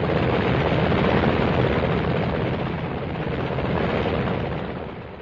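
Helicopters taking off, engine and rotors running as a steady noise that fades away near the end.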